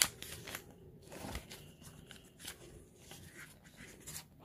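Pages of a Shonen Jump manga magazine being turned: a few faint, brief paper flicks and rustles, spaced irregularly.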